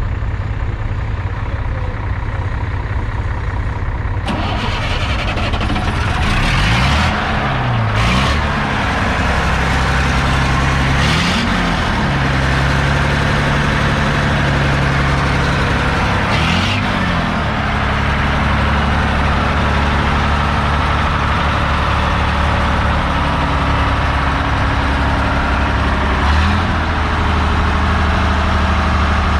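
1973 AEC Mandator's diesel engine idling, with the throttle blipped about five times so the revs rise and fall briefly.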